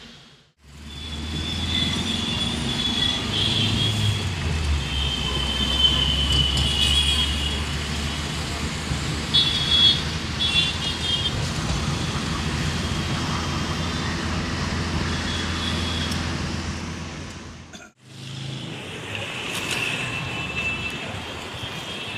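Steady low rumble of a moving vehicle, with short high-pitched squeals or toots over it. The sound breaks off suddenly just after the start and again near the end.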